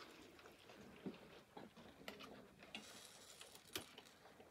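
Near-quiet with a few faint, scattered clicks and light taps from metal cookware (a pot, lid and spoon) being handled over a bed of glowing coals, and a brief soft hiss about three seconds in.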